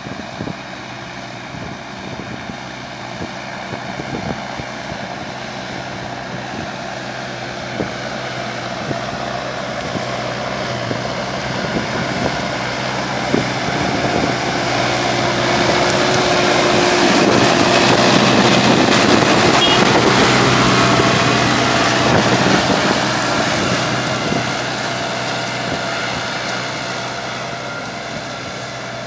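Deutz-Fahr Agrofarm 115 tractor's diesel engine running steadily under load while pulling a plough. It grows louder as the tractor approaches, is loudest a little past halfway as it passes, then fades as it moves away.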